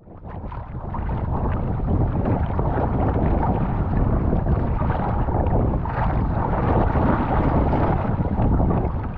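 Choppy sea water sloshing and splashing against a sea kayak close to a microphone at the waterline, with wind rumbling on the microphone. It fades in over the first couple of seconds.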